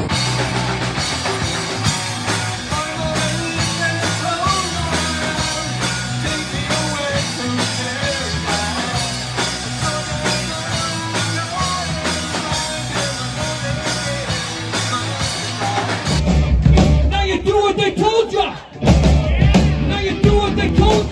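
Live rock band playing, with drums, electric guitars and singing. About 16 seconds in it cuts abruptly to a different live performance that is louder and heavier in the bass, with a brief drop in level shortly after.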